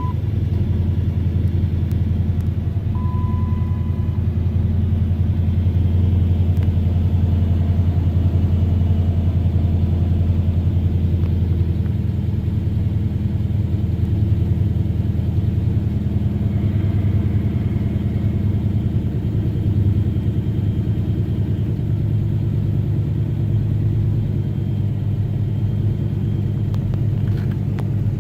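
Dodge Magnum SRT8's 6.1-litre Hemi V8 idling steadily just after a cold start, a deep low rumble; the owner reports a misfire at idle. A short electronic beep sounds about three seconds in.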